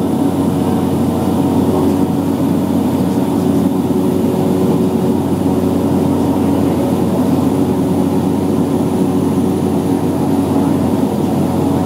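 Piston engine and propeller of a small high-wing light aircraft running steadily in cruise, heard from inside the cabin as an even, unbroken drone.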